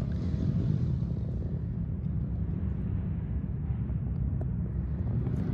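Distant dirt bike engines droning steadily from the surrounding motocross tracks, heard as a low, even rumble.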